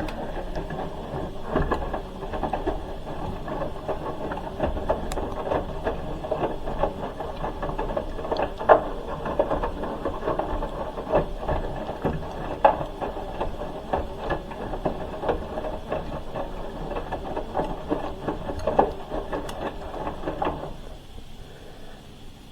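Hoover H-Wash 300 Plus front-loading washing machine tumbling a wash load: drum turning with water sloshing and irregular clicks and knocks, stopping about two seconds before the end as the drum pauses.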